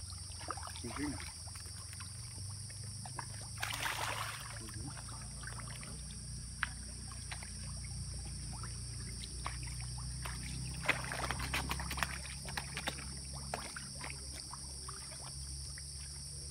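Lakeside ambience: a steady high-pitched insect chorus over a low rumble, with scattered small water splashes and clicks and a brief rush of noise about four seconds in.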